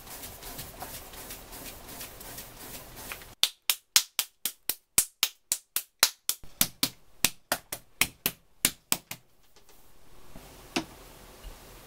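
Hands slapping a lump of dark clay on a wooden table: light patting and rubbing at first, then a fast run of sharp slaps, about three or four a second, lasting some six seconds, and a single knock near the end.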